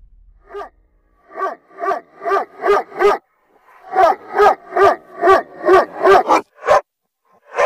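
Dog barks played in reverse: each bark swells up and then cuts off abruptly. They come in two quick runs of about two to three a second, with a short gap between the runs.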